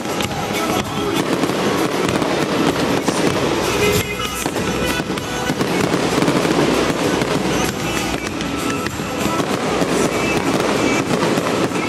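Fireworks bursting and crackling in a dense, continuous barrage, over music playing through loudspeakers.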